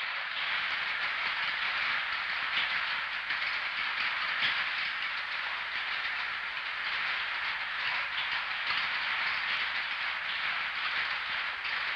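Crossbar switching equipment in a telephone central office clattering: a dense, continuous chatter of many small switch and relay clicks as the machine makes connections, heard in the background down a telephone line.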